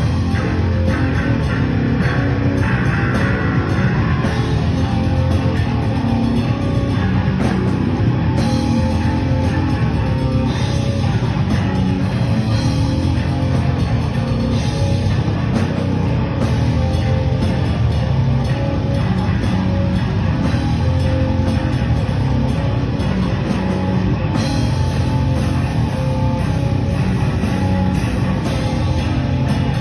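Live heavy metal band playing loud and dense, with distorted guitars, bass and drum kit, kicking in abruptly at the start.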